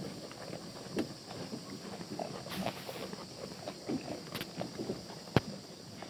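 Black goats feeding on hay at a wooden feeder: straw rustling as it is pulled and munched, with irregular soft knocks and clicks. One sharp knock comes about five seconds in.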